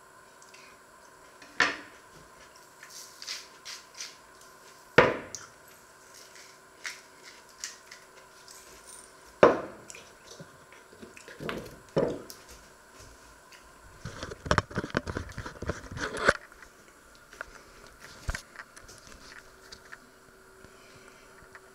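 Kitchen handling on wooden cutting boards: a series of sharp knocks and clicks as a knife and other things are set down, the loudest two about five and nine seconds in. Later comes about two seconds of rapid crackling from a pepper mill grinding pepper over sliced tomatoes.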